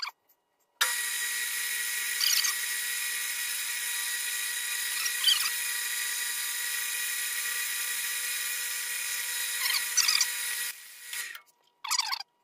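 Metal lathe running with a steady high whine while a threading insert cuts threads on a half-inch steel rod. It starts abruptly about a second in and cuts off suddenly near the end.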